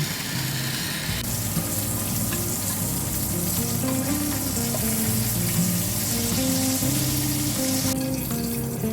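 Meat sizzling as it fries in a hot pan, a dense crackling hiss that stops about eight seconds in. Background music plays underneath.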